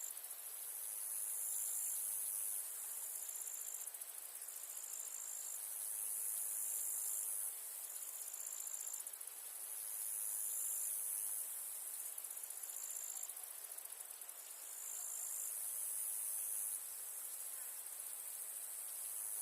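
Crickets trilling in a steady high chorus that swells and fades every few seconds, with a short high chirp repeating about every second and a half.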